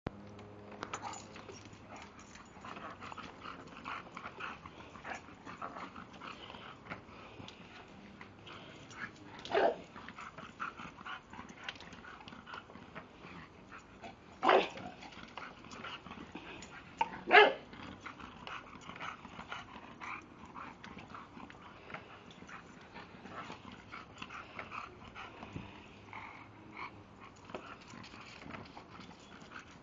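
English bulldog making small dog noises as it scrambles about on grass, with three short, loud barks spaced a few seconds apart.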